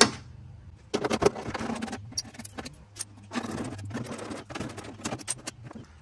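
Light metallic clicking and rattling as a socket driver backs out loose bolts and the sheet-metal window motor cover is worked off a C3 Corvette door's inner panel.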